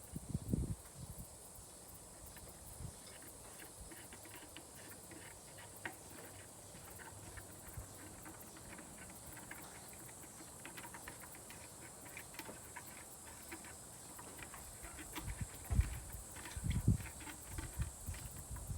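Steady high-pitched insect chirring in the background, with scattered light clicks and a few dull thumps, the loudest a little before the end.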